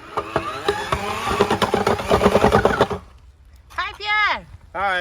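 Motor-driven post-hole auger running and boring into the ground, with a steady engine note and rapid clattering knocks, which cuts off abruptly about three seconds in. Then a voice calls out twice, with the pitch rising and falling.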